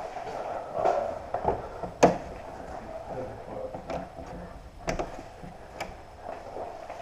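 Irregular sharp clicks and knocks of a person moving about with gear, the loudest about two seconds in.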